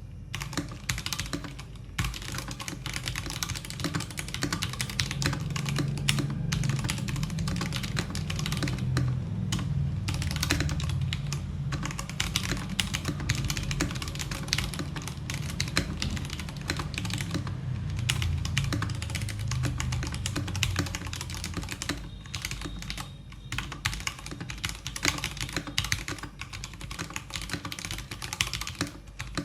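Fast, continuous typing on a mechanical keyboard with freshly lubed switches: a dense stream of keystrokes, each a click with a low thud as the key bottoms out.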